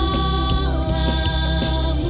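Worship song played by a small band: a woman's voice holds a sung note that slides down about two-thirds of a second in, over electric bass guitar and a steady drum beat.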